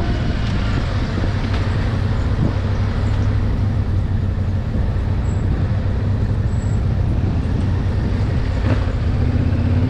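A vehicle engine running steadily with a low drone, rising in pitch near the end.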